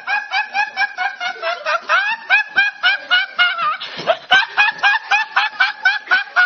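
A young man laughing uncontrollably: a long run of high-pitched, squeaky laughs, evenly repeated a few times a second.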